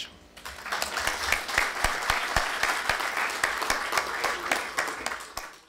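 Audience applauding, many hands clapping together. It builds about half a second in and fades out near the end.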